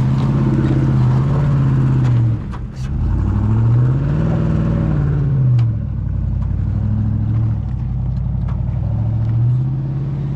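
Supercharged Range Rover P38 engine revving up and down as it is driven over rough terrain. The pitch rises and falls several times, with a brief drop about two and a half seconds in.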